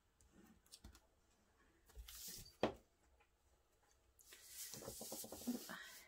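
Cardstock being handled on a craft mat: a short rustle ending in a sharp tap about two and a half seconds in, then a longer rustle near the end as a glued card layer is turned over and slid into place on the card base.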